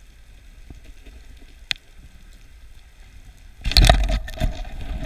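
Underwater, a 9-foot pole spear is shot into a reef hole at a black grouper about three and a half seconds in: a sudden loud clatter with a deep rumble, then a run of knocks and rattles as the struck fish pulls the spear into the reef. A single sharp click comes a second or two earlier.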